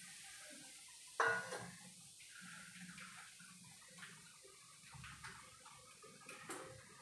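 A metal dish clanks down once about a second in, with a short ring. After it come a few faint small ticks over a low, quiet hum.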